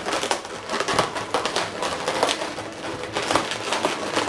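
Twisted latex modelling balloons rubbing against each other as they are squeezed and pressed into place by hand, giving a fast, irregular run of squeaks and creaks.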